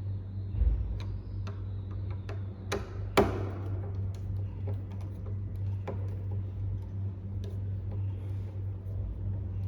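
Scattered small clicks and taps of metal parts being handled on an electric door lock as its new coil is fitted, with one louder metallic click a little after three seconds in.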